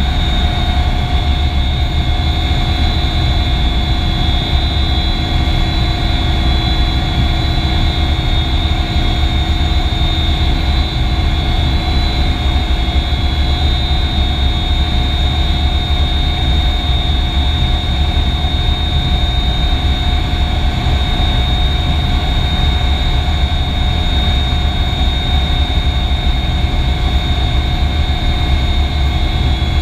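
Sikorsky S-58T helicopter's Pratt & Whitney PT6T Twin-Pac turboshaft engines running steadily on the ground, heard from inside the cockpit. A constant high turbine whine sits over a heavy low drone, with no change in pitch or level.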